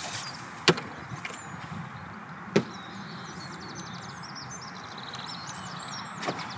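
Two sharp knocks about two seconds apart as a long carbon fishing pole is shipped back and handled on the tackle box, over a steady outdoor hiss.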